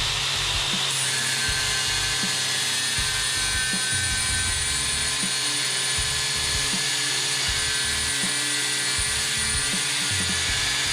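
DeWalt DCG414 60V FlexVolt brushless cordless angle grinder with a 4.5-inch flap disc grinding a steel bar under steady load, running at an even pitch without letting up.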